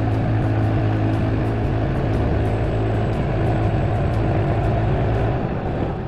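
Woodland Mills HM126 portable bandsaw mill running, its gas engine driving the blade through a southern yellow pine cant with a steady low hum. The sound drops off near the end.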